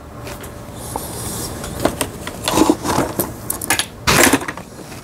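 Light clicks and rustles of hands threading a Janome-built household sewing machine: thread drawn through the guides and small metal parts clinking around the needle. The strongest rustling burst comes a little after four seconds in, over a low steady hum.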